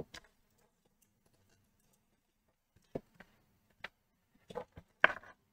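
A few scattered light clicks and taps, about five of them in the last three seconds, the loudest near the end, as an RCA input cable is handled and its plug connected to the amplifier.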